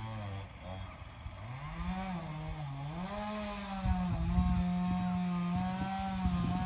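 A small engine revving up and down, its pitch dipping and rising several times and then held steady and high through the second half. Under it is a crackling low rumble that grows louder about four seconds in.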